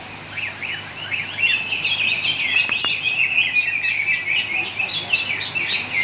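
Many caged cucak ijo (green leafbirds) singing at once: a dense, overlapping chatter of rapid chirps and whistled phrases that grows fuller about a second and a half in.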